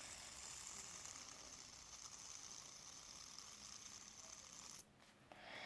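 A fidget spinner spinning after being flicked: a faint, steady whirring hiss that cuts off suddenly near the end.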